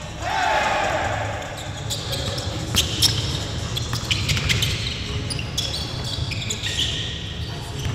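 Basketballs bouncing on a gym floor, with a sneaker squeak about half a second in.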